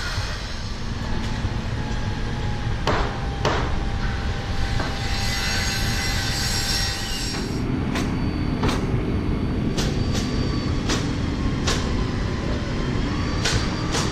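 Sharp knocks of crews nailing wood laminate onto a wooden roller coaster track, a few at first and then more often, over a steady low rumble of site machinery or wind.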